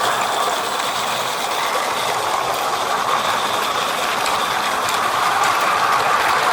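Small 16mm-scale live-steam garden locomotive and its train running steadily on 32mm-gauge track, a continuous mechanical clatter and hiss.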